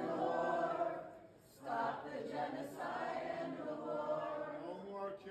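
A group of voices singing a chant together in held, sustained notes, with a brief pause about a second in.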